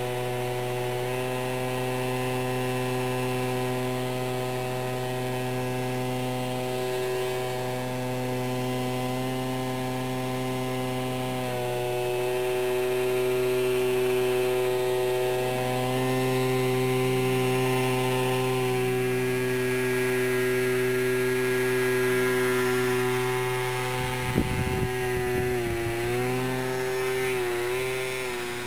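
Electric motor and propeller of a small RC flying-wing plane hovering nose-up in a prop hang: a steady buzzing whine made of several pitches, sliding up and down as the throttle is worked. Near the end the pitch wavers quickly, with a few low thumps.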